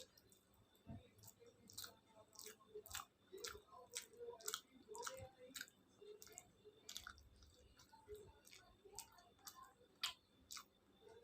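Close-up mouth sounds of someone chewing khichuri and fried vegetables: irregular wet smacks and soft clicks, with the loudest about ten seconds in.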